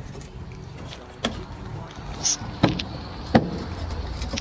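Sharp metal knocks and pops from a dented car body panel as it is pried out from behind with a dent-repair bar levered on a wooden post. There are three main knocks, and the last two are the loudest.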